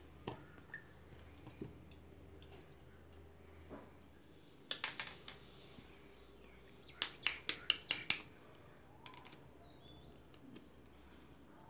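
Eggs being cracked into a stainless-steel cake tin: three sharp taps about five seconds in, then a quick run of about seven louder taps as a shell is knocked open a couple of seconds later, with a few faint clicks of shell against steel around them.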